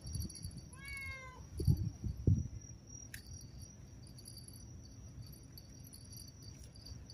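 A cat meows once, about a second in, followed by a few low thumps and a sharp click, over a steady high chirring of crickets.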